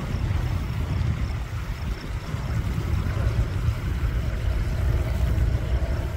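Distant Cessna 172M Skyhawk on landing approach, its Lycoming O-320 four-cylinder engine and propeller droning as a steady low rumble. A faint steady hum comes in about halfway through as the plane draws nearer.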